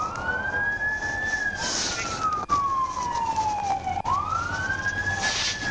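Emergency vehicle siren on a wail. The pitch climbs for about a second, then slowly falls over nearly three seconds, and it does this twice.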